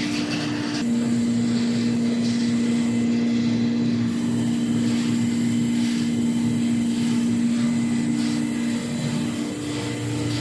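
Waste paper baler's hydraulic power unit running with a steady machine hum; its pitch steps down about a second in and back up near the end.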